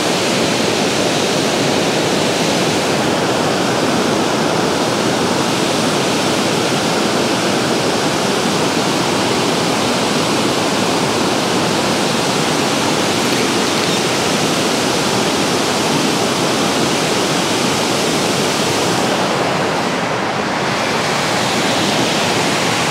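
Water pouring over a dam spillway, a steady, loud rush of white water that eases slightly near the end.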